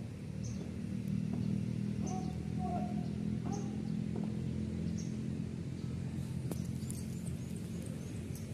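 Steady low outdoor rumble with a small bird chirping every second and a half or so.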